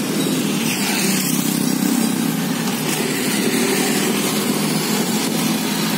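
Town street traffic heard from a rolling pedicab: small motorbike engines running nearby over a steady rush of road noise.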